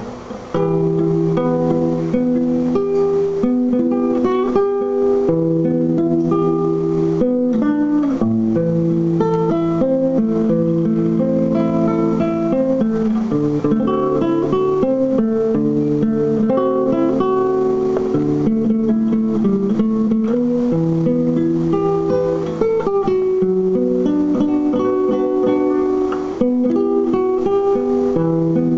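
A solo plucked string instrument, guitar-like, plays the instrumental introduction to a song: strummed chords with a melody over them, and no voice yet.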